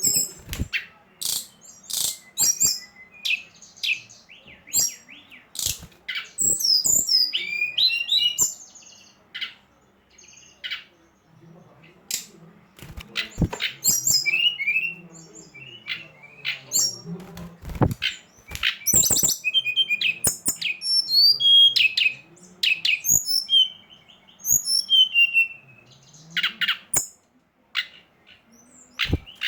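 Songbird calling, a lure recording: quick runs of sharp, high chirps, short warbling trills and clicking notes, with brief pauses between phrases.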